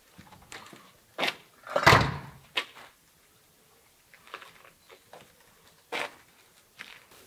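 A door banging shut about two seconds in, the loudest sound, with a few sharp knocks and footsteps on pavement scattered around it.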